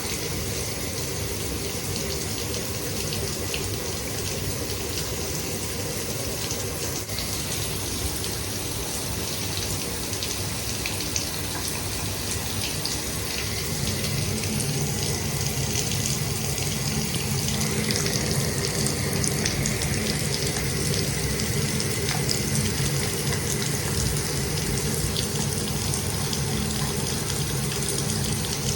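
Shower running: a steady spray of water hissing and spattering, growing a little louder and fuller about halfway through.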